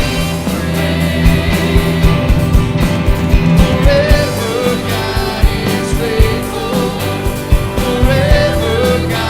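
Live worship band playing a song with drums keeping a steady beat and a voice singing over the instruments.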